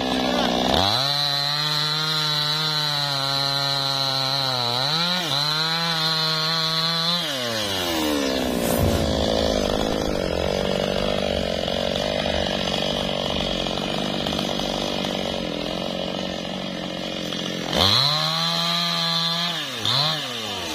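New West 628 two-stroke chainsaw sawing through lamtoro (leucaena) logs, revving high under load. It drops to a lower, slower run from about seven seconds in, then revs up hard again near the end.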